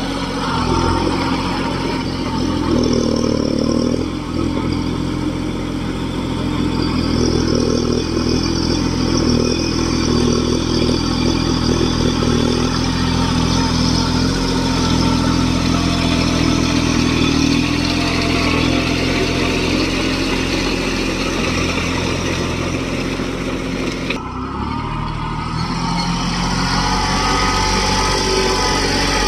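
Kubota mini tractor's diesel engine running steadily at an even speed. The sound cuts abruptly about three-quarters of the way through, then the engine carries on.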